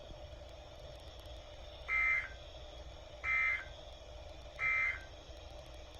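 Three short bursts of buzzy two-tone digital data code from a NOAA Weather Radio receiver, each about half a second long and spaced about a second and a half apart, over a low steady hum. This is the SAME/EAS end-of-message signal that closes the required weekly test.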